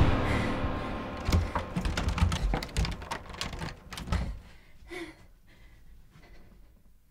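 Loud film score fading away at the start, then a fast, irregular run of clicks and knocks from a door lever handle being rattled, stopping about four and a half seconds in.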